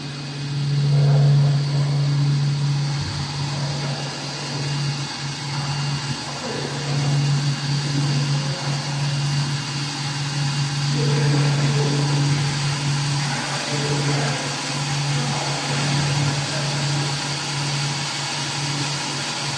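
Machinery running steadily with a strong, constant low hum over a wash of mechanical noise.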